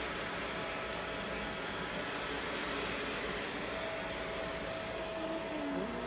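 Handheld hair dryer blowing steadily while drying a long-haired cat's fur, with a thin steady whine over the rush of air.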